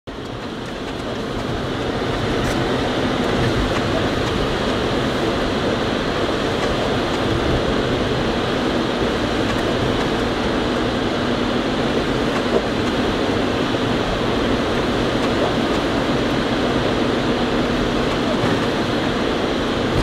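Steady driving noise heard inside a car's cabin: tyres hissing on a wet road under the engine's low rumble. A single short knock a little past halfway.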